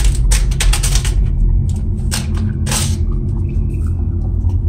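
Paper template being ripped off rows of small nails in a wooden board: a quick run of crackling tears in the first second, then two more tears about two and nearly three seconds in, over a steady low hum.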